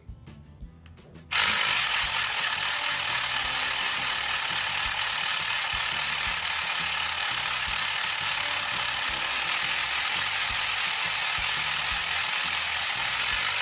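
Battery-powered Super Quiller motor driving the Crimping Buddy's gears as a quilling paper strip is fed through and crimped: a loud, steady mechanical whir that starts about a second in and holds even.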